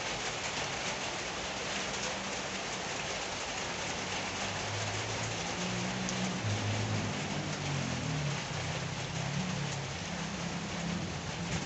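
Steady rain falling and pattering on surfaces. From about four seconds in, a low rumble rises under the rain and fades near the end.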